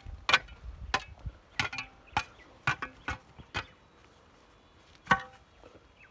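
Metal shovel striking and scraping the hot stones in an umu earth-oven pit: a series of sharp, ringing clinks about half a second apart, a pause, then one loud clink near the end.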